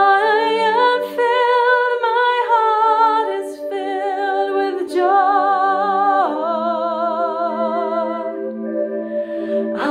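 A woman singing wordlessly with vibrato on long held notes, sliding down to a lower note about six seconds in. Beneath her voice, a small accompanying instrument sustains low notes that change a few times.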